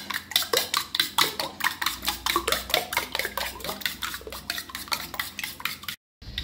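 A fork beating raw eggs in a stainless steel bowl, its tines clicking rapidly against the bowl, about six strokes a second, with a liquid slosh; it cuts off abruptly about six seconds in.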